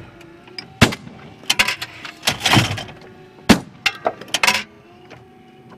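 Shotguns firing at clay targets: several loud, sharp bangs in the first four and a half seconds, mixed with the snap of the Do All Outdoors USA Clay Trap automatic thrower's arm swinging round to launch a clay.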